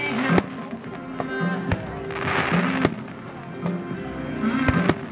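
Aerial fireworks going off in several sharp bangs, the loudest about half a second in, near three seconds and near the end, over pop music played on loudspeakers for the show.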